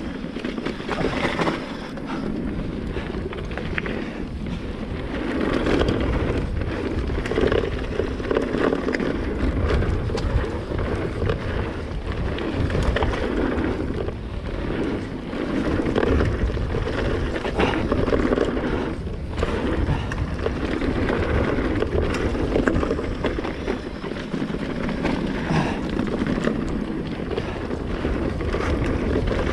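Wind buffeting the bike-mounted camera's microphone as a mountain bike descends at speed, its tyres rolling over gravel and stones, with many small knocks and rattles from the bike going over the rough trail.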